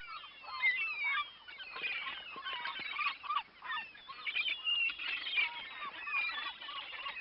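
A flock of birds calling: many short, rising-and-falling calls overlapping one another, with no pause.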